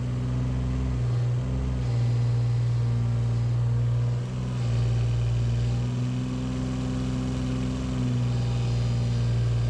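Mini excavator's diesel engine running steadily, its note dipping and shifting a few times as the machine works.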